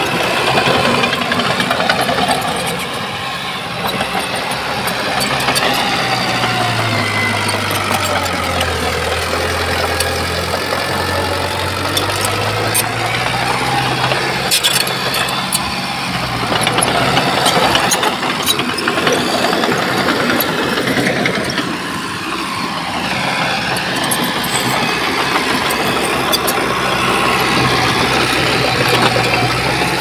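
Diesel engine of heavy earthmoving machinery running and working, its pitch rising and falling with the throttle, with occasional sharp clicks and clanks.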